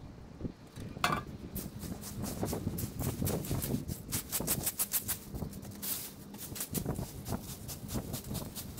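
A garden rake scraping through ivy clippings and dry leaves on the ground: repeated short scratchy strokes, several a second, coming quicker in the last couple of seconds.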